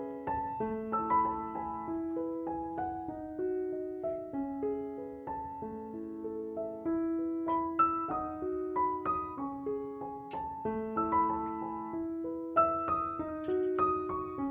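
Background piano music: a gentle melody of single held notes.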